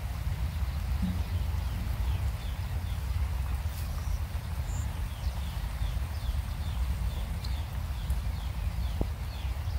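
Outdoor ambience: a steady low rumble with a run of short, falling chirps, about three a second, through the middle.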